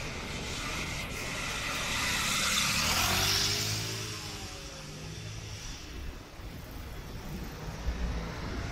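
City street traffic: a vehicle passes close by, its engine and tyre noise swelling to a peak about three seconds in and then fading away. A low engine rumble builds again near the end.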